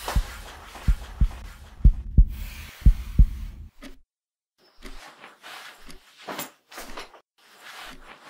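Heartbeat sound effect: deep thumps in lub-dub pairs about once a second over a rustling hiss, stopping abruptly about four seconds in. Then faint short scratches and rustles.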